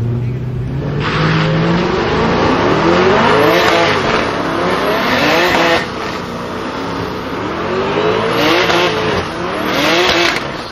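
Two cars at a drag-race start line doing burnouts: the engines rev hard in repeated rising sweeps over the hiss and squeal of spinning rear tyres, twice building up and easing off.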